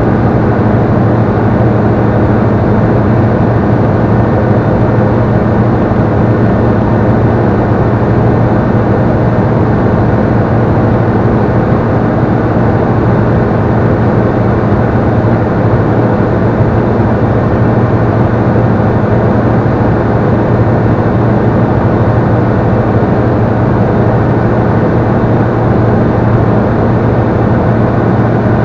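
Robin CDI light aircraft's diesel engine and propeller running steadily at cruise power, a loud, unchanging drone heard inside the cockpit.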